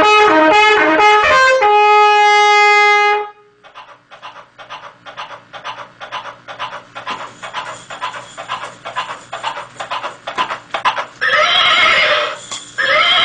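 A trumpet fanfare of quick rising notes ending on one long held note, then a run of horse hoofbeats, several a second, for about seven seconds, and a horse whinnying loudly near the end.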